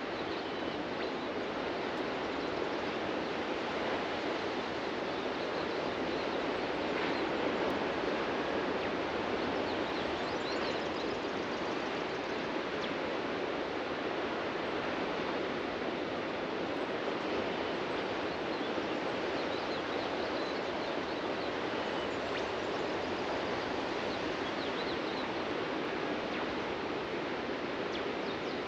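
Ocean surf washing steadily onto a beach, a continuous rushing wash that swells a little about a third of the way through, with faint bird chirps here and there.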